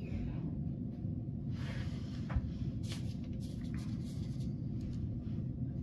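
Steady low hum of room tone, with a few faint scratches and clicks from a pen and paper.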